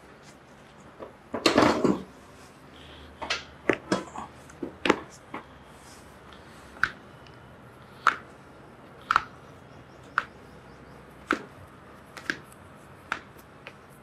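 Toe joints popping as a chiropractor pulls the patient's toes one at a time: a series of sharp single clicks, roughly one a second from about the middle on. A louder, longer burst of noise comes about a second and a half in.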